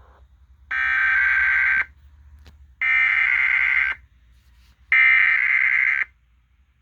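Emergency Alert System SAME header: three bursts of screechy digital data tones, each about a second long with about a second's gap between them, sent at the start of an EAS weekly test.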